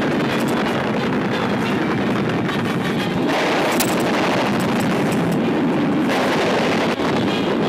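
Steady, dense roar of dubbed aircraft-attack sound effects, engine and blast noise, on a worn 1940s optical soundtrack with crackle. It turns harsher about three seconds in and eases about six seconds in.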